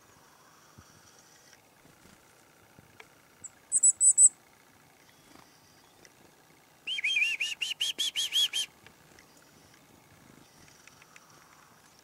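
Boreal chickadee calling: a quick cluster of very high, thin notes, then a few seconds later a rapid run of about ten buzzy notes lasting under two seconds.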